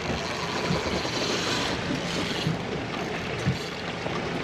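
Wind buffeting the microphone and water slapping against the hull of an offshore fishing boat, with one short sharp knock about three and a half seconds in.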